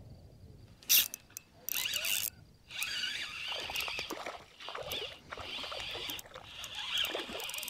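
Fishing tackle at work: a sharp click about a second in, then a fishing reel being wound in stop-start spurts, a whirring that breaks off and resumes several times.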